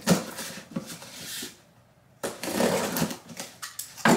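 Packing tape on a cardboard box being cut through with a small hand tool, scraping and crackling, then the cardboard flaps being pulled open with rustling and tape crackling. There is a brief pause about two seconds in and a sharp snap near the end.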